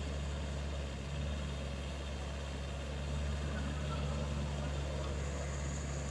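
Komatsu PC45MR mini excavator's diesel engine running steadily as the machine, bogged down in mud, works its arm and bucket against the ground to push itself out.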